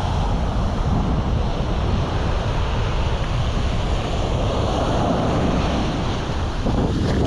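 Wind buffeting the microphone in a steady rumble, with waves breaking on the shore behind it.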